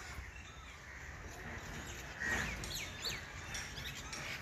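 Birds calling over low outdoor background noise, with a short call and then a few quick downward-sliding chirps about two to three seconds in.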